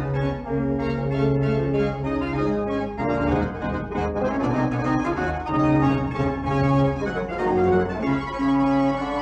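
Background music with an organ-like keyboard playing held chords that change every second or so, growing busier about three seconds in.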